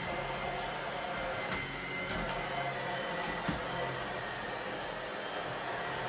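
Tineco Pure One S11 cordless stick vacuum running steadily while being pushed over a wooden floor: a constant rush of air with a faint steady whine on top.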